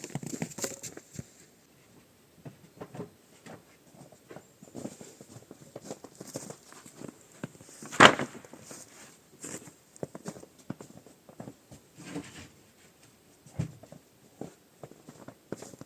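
Irregular rustling, small clicks and light knocks of someone moving about and handling things, with one sharp, loud knock about halfway through.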